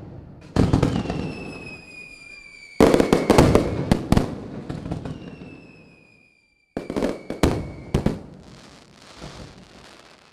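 Fireworks bursting overhead: sharp bangs and clusters of crackling reports, each trailing off in echo. A thin high whistle slowly falls in pitch twice between the bursts.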